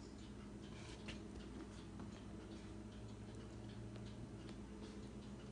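Faint, irregular ticking and crackling from chicken pieces settling in a hot stainless steel pan, over a low steady hum.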